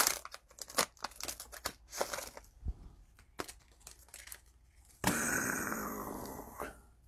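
Cellophane wrapper of a 2020 Panini Mosaic football cello pack crinkling in quick crackles as it is handled and torn open. About five seconds in comes a longer rustle that fades over a second and a half.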